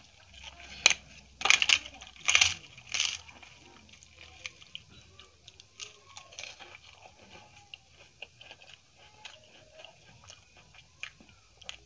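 Close-mic eating: four loud crisp crunches in the first three seconds, as papad is bitten and chewed, then quieter wet chewing and lip smacks of rice and curry eaten by hand.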